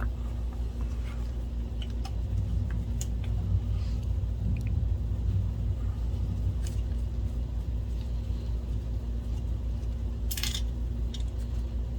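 Scattered faint clicks and clinks of a screwdriver and small metal parts being handled, with a sharper clack about ten and a half seconds in, over a steady low hum.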